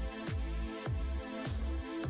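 Background electronic music: a steady kick drum about twice a second under sustained synth chords.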